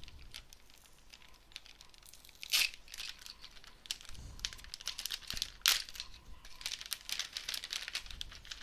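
Crinkling and rustling of small plastic packaging with scattered clicks and two louder bursts, about two and a half and five and a half seconds in: a replacement TOP258PN power-supply IC being unpacked.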